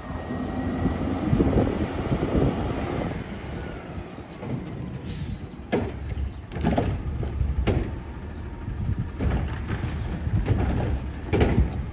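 Front-loading garbage truck's diesel engine running as its automated arm picks up a wheeled trash cart and tips it into the carry can, with several sharp metal-and-plastic clunks a few seconds in and again near the end.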